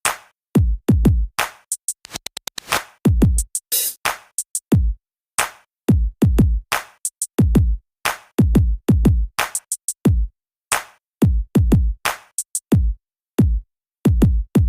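Electronic drum-machine beat: deep bass kicks that slide down in pitch, with sharp snappy hits and a quick roll about two seconds in.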